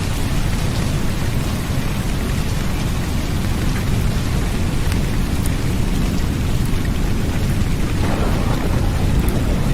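Steady heavy rain with a low, continuous rumble of thunder beneath it; the rain's hiss grows a little fuller about eight seconds in.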